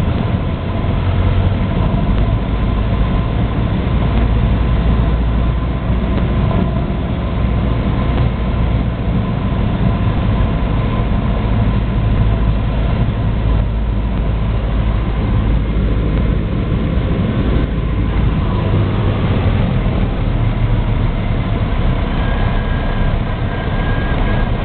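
Light aircraft's piston engine and propeller running with a steady drone during the landing approach, several steady tones riding over a strong low rumble.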